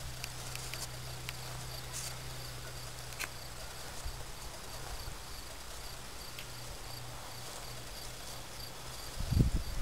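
Crickets chirping in a steady, faint high-pitched trill, with a few low rumbles near the end.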